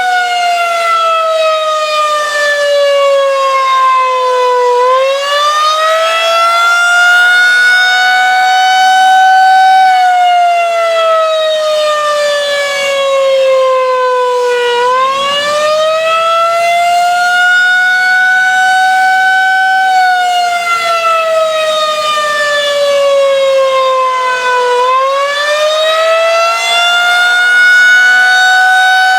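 Federal Signal 2001-130 rotating outdoor warning siren sounding the attack signal: a loud wail whose pitch falls and rises in turn, each glide lasting about five seconds, three falls and three rises in all.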